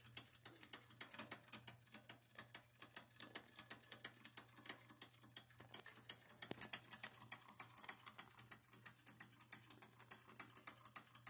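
Wilesco D11 toy live steam engine running, driving its reduction gears and model pump jack: a fast, light, even ticking, several clicks a second. A faint steady low hum lies beneath it.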